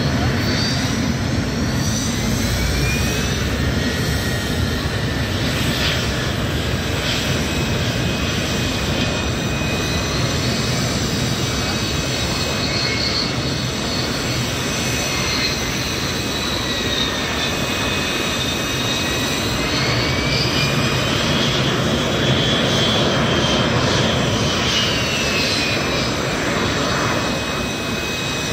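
Turbine engines of L-39 and L-29 racing jets at taxi power, a steady rumble under several high whines. The whines slide up and down in pitch as the jets roll past.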